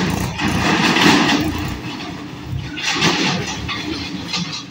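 A tractor pulling a loaded trailer and motorbikes crossing a railway level crossing close by, their engines running. The sound swells twice, about a second in and again about three seconds in.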